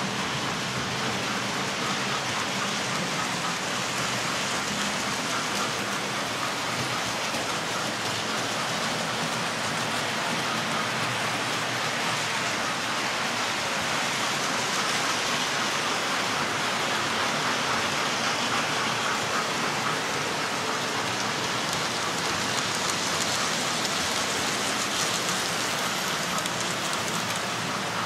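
Several model railway trains running at once: a steady, rain-like hiss and rattle of small wheels on track and electric motors.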